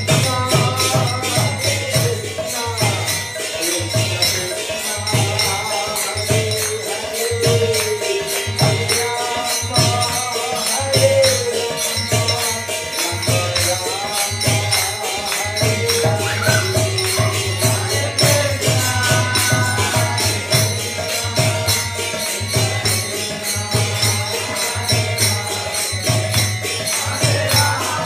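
Devotional kirtan: a man singing a chant into a microphone, accompanied by small hand cymbals (karatalas) struck in a quick, even rhythm, with a low, pulsing beat underneath.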